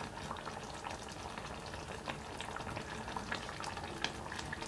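Tomato broth with chicken and bok choy simmering in a frying pan: a steady crackling sizzle with many small bubbles popping.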